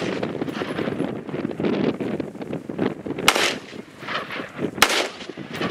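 Two rifle shots from a .223 rifle, about a second and a half apart, over wind buffeting the microphone.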